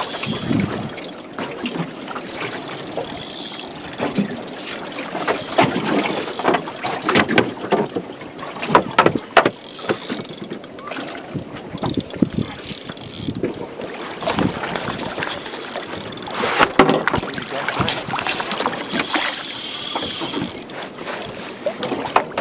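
Small boat at sea: water slapping against the hull, with irregular knocks and bumps and wind on the microphone.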